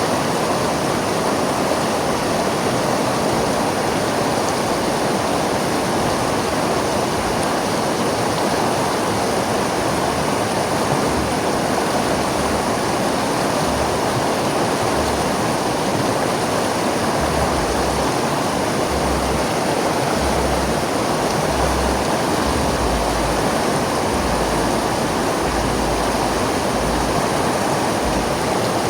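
River water flowing over rocks: a steady rushing, strongest in the low-middle range, without let-up.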